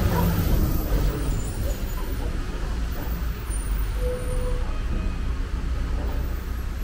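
Traffic on a wet city street: a steady low rumble of vehicle engines, with a garbage truck standing close by in the road. A brief squeal sounds about four seconds in.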